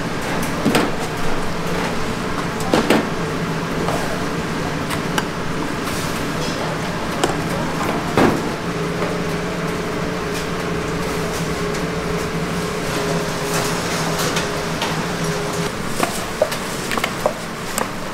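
Steady background hum and noise of a busy food stall, with scattered short knocks and clatters of cooking utensils. The hum stands out more clearly in the middle, and the knocks come more often near the end.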